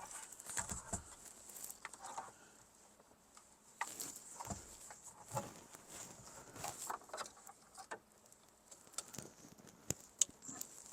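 Faint, scattered clicks, taps and rustles of hands handling a new car stereo and its wiring and antenna connectors in a dashboard, with short quiet gaps between.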